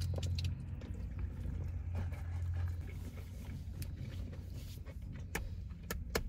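Low steady hum inside a parked car's cabin, from the car running; it is strongest in the first half-second, then fades lower. A few faint clicks near the end.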